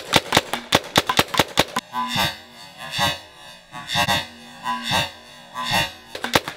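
A fully automatic paintball gun firing in rapid bursts of about seven or eight shots a second. For about four seconds in the middle, the shots give way to a different, slower pulsing sound with a held tone, about one swell a second. Rapid fire resumes near the end.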